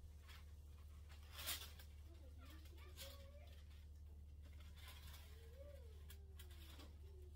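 Faint rustling and crinkling of parchment paper being handled and laid onto a food dehydrator tray, in a few short scrapes, the sharpest about a second and a half in, over a low steady hum.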